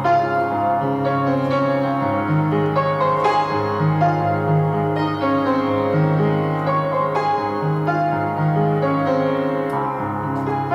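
Piano music: a slow run of single notes over held low bass notes.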